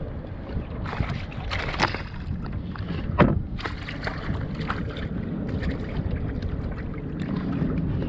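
Wind buffeting the microphone and water sloshing against a kayak hull on open sea, with a few sharp knocks about one, two and three seconds in.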